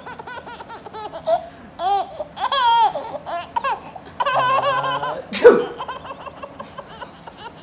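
Baby laughing in short high-pitched bursts of giggles and squeals, with a sharp loud burst about five and a half seconds in.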